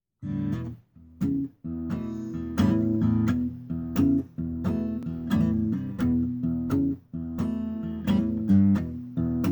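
Acoustic guitar playing a blues introduction: chords struck in a steady rhythm, with short pauses about a second in and again about seven seconds in.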